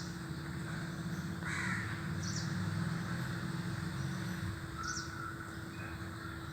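Crow cawing, two short calls about three and a half seconds apart, over a steady low rumble and hum.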